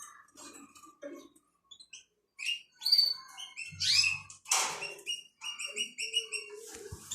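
Small birds chirping: many short, high calls and quick glides, with a run of evenly repeated notes in the second half.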